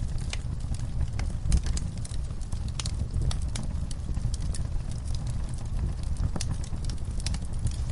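Wood campfire burning: a steady low rumble of flames with irregular crackles and pops from the burning wood, one louder pop about one and a half seconds in.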